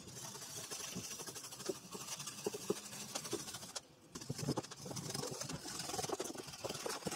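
Knife blade cutting away the excess of resin-soaked carbon fiber cloth along the mould edge while the resin is half cured: a scratchy, crackling scraping with a short break about four seconds in.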